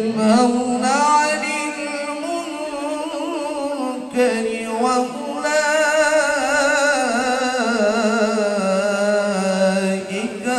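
Quran recitation (tilawah) by a male qari singing into a handheld microphone: long melodic phrases with richly ornamented, wavering pitch, broken by short pauses for breath about four seconds in and near the end.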